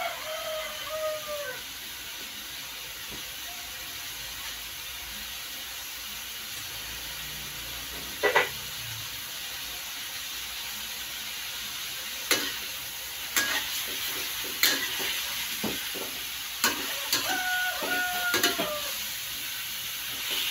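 Chicken and pork frying in a wok with a steady sizzle. In the second half a metal spatula stirs the meat, scraping and knocking against the pan. A rooster crows in the background at the start and again near the end.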